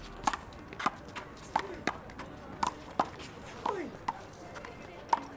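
Sharp smacks of a rubber handball during a rally: the ball struck by hand, off the wall and bouncing on the court, about one every half second. A few short, falling squeaks come between the hits.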